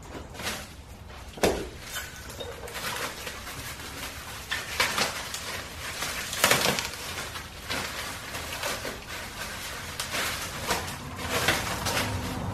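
Plastic wrapping and cardboard rustling and crackling as a welded steel yoke foot is pulled from its box and unwrapped, with a sharp knock about a second and a half in.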